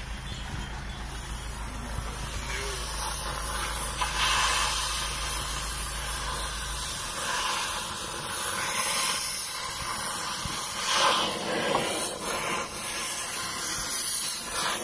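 Oxy-fuel cutting torch hissing steadily as its flame cuts through steel on a truck chassis.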